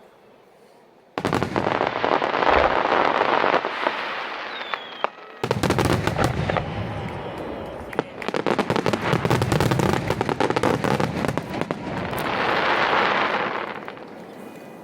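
Fireworks going off in the display's closing barrage. A sudden loud burst about a second in starts a run of booms, then dense rapid crackling comes from about five seconds in and dies away near the end.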